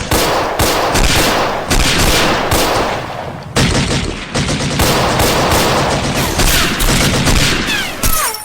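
Heavy, sustained gunfire sound effects of machine-gun and rifle fire firing rapidly and overlapping as covering fire, with a falling whistle near the end.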